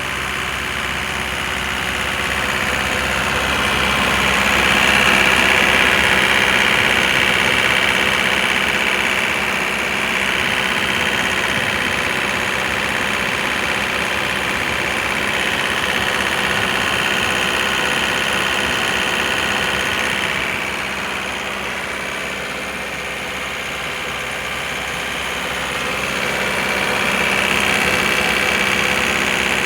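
Sullair air compressor running steadily, with a hiss that swells louder three times and eases off again.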